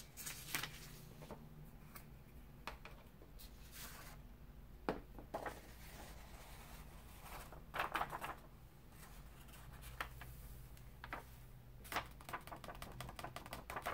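Scattered small clicks, taps and rustles of ink-stamping supplies being handled and put away on a craft table, over a low steady hum.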